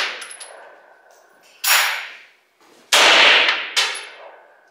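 Three pistol shots, the first about a second and a half in, the next two about a second and then under a second later, each trailing off in a short echo.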